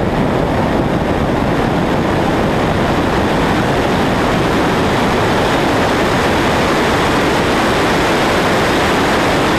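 Steady loud rush of wind and road noise from a 2009 Chevrolet Cobalt SS at speed in a roll race, its engine under full acceleration blended into the noise rather than standing out as a clear tone.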